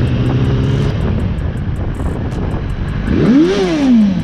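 Motorcycle engine and wind noise while riding in traffic. About three seconds in, an engine is revved sharply: its pitch climbs fast and then drops back.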